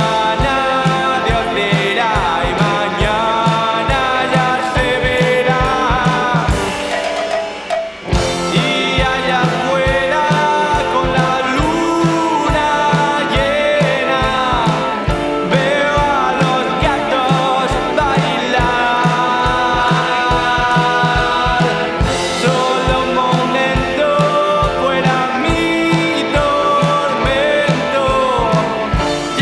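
Rock song with singing over a steady drum beat. About seven seconds in, the drums and bass drop out for about a second and a half, then the full band comes back in.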